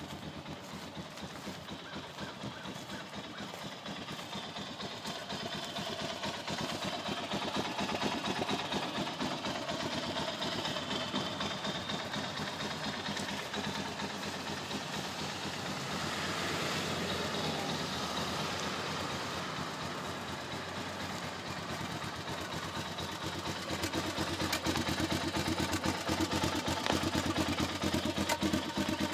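Arctic Cat 650 TRV ATV engine idling steadily, with an even, pulsing exhaust note that grows louder near the end as the muffler comes close.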